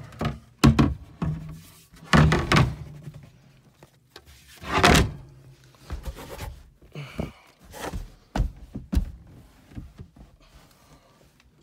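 Handling noise in a small boat cabin: a string of thunks and knocks as gear and fittings are moved, with two longer rustling bursts about two and five seconds in.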